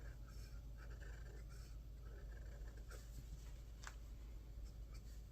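Faint scratch of a fountain pen nib writing on paper in a run of short strokes, followed by a few light clicks.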